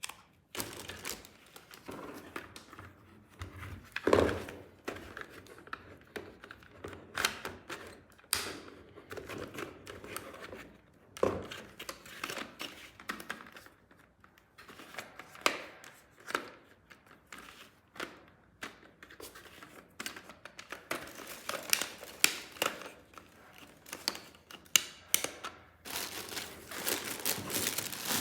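Toy packaging being handled and unwrapped: irregular crinkling and tearing of wrapping, mixed with sharp clicks and knocks. The rustling grows denser near the end.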